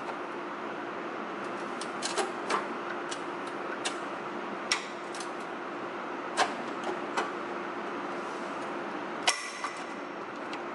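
Hand work on metal bolts and fittings with tools: scattered sharp clicks and clinks, about a dozen at uneven intervals, the sharpest a little over nine seconds in, over a steady low hum.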